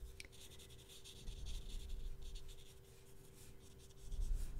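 Bristles of a damp paintbrush rubbing on paper, a faint scratchy brushing as water blends watercolor-pencil colour. A faint steady hum runs underneath.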